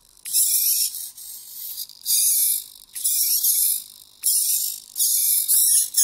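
Two hobby micro servo motors on a pan-tilt cradle buzzing in repeated short bursts, each under a second long, as a joystick drives them back and forth. The noise is typical of a faulty servo: one of them is really noisy, which the owner thinks has a problem.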